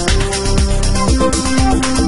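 Electronic background music with a steady beat of low drum hits under sustained synth notes.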